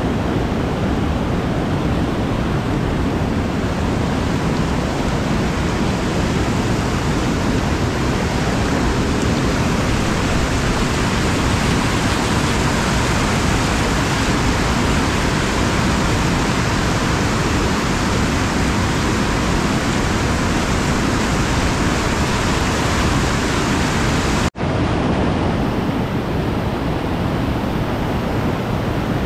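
Loud, steady rush of whitewater as a kayak runs a river ledge rapid. The sound cuts out for an instant near the end and resumes with a little less hiss.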